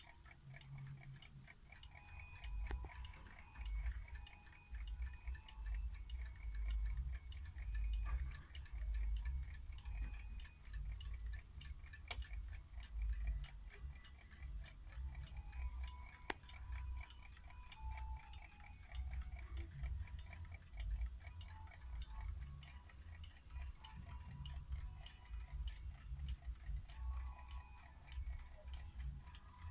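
Antique mechanical table alarm clocks ticking steadily, a fast run of clicks, over a low rumble.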